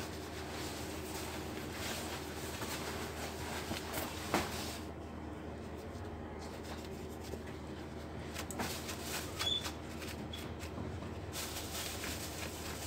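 Light handling noises on a workbench, small clicks, scrapes and rubbing, over a steady low hum, with one sharper click about four seconds in.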